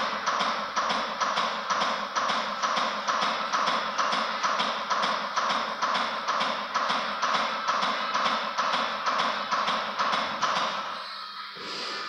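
CPR training manikin clicking in a fast, even rhythm under steady chest compressions, with music playing along. The compressions stop about eleven seconds in.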